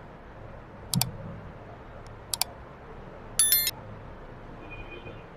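Sound effects of a like-and-subscribe overlay: a single mouse click about a second in, a quick double click a little after two seconds, then a short bright bell ding for the notification bell, over a low steady room hum.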